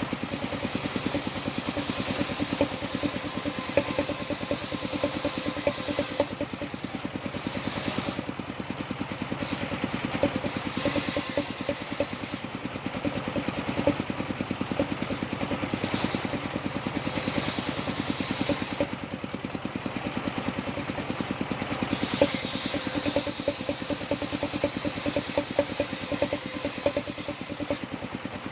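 Engine-driven sawmill running steadily: a fast, even engine beat, with stretches of brighter hiss every few seconds.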